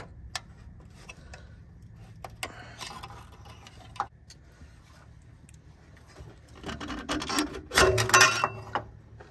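Small clicks and scrapes of a screwdriver working at the quick-connect fitting of a fuel-line filter. Near the end comes a louder stretch of rattling and scraping as the stuck filter is twisted and pulled at by hand.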